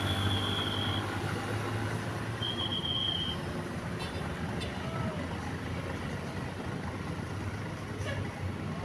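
Road traffic: a passing vehicle's engine fades in the first second, followed by a steady traffic hum. Two brief high-pitched beeps sound early on, the second at about two and a half seconds.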